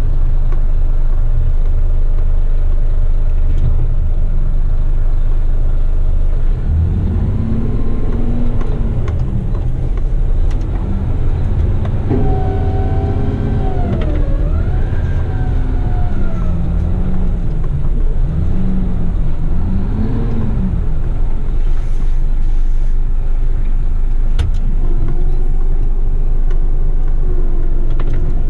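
Front-lift garbage truck's diesel engine running, heard from inside the cab. Through the middle stretch a whine rises and falls in pitch as the engine revs and the front hydraulic lift arms are worked.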